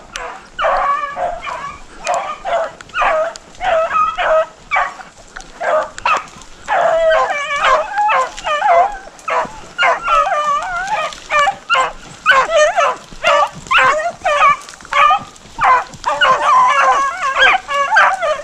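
A pack of rabbit hounds giving tongue as they run a rabbit's scent: short bawls and yips from several dogs overlapping and repeating without a break.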